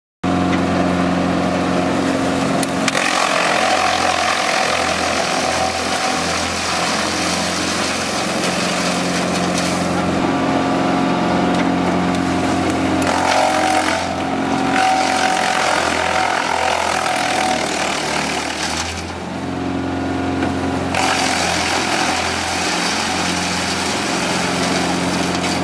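Skorpion 250 SDT/G disc wood chipper running: its four-cylinder Yanmar diesel engine holds a steady drone while a loud rushing noise of chipping rides over it, easing off briefly a few times.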